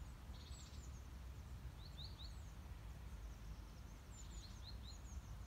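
Quiet outdoor ambience: a low steady rumble with small birds chirping faintly, short high notes in quick runs of two or three.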